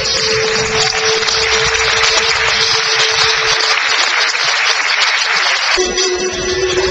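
Audience applauding over background music; the clapping dies away about six seconds in while the music carries on.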